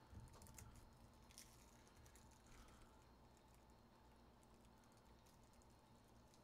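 Near silence: low room hum with a few faint, scattered clicks of typing on a computer keyboard, most of them in the first few seconds.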